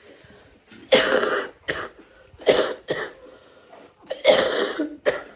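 A person coughing hard, a fit of about six coughs in three or four bunches; they are ill and have lost their voice.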